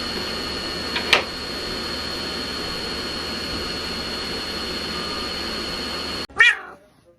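Steady machine-like hum and hiss with a thin, steady high whine, broken by a sharp click about a second in. Near the end it cuts off suddenly and a short, loud sweeping sound follows.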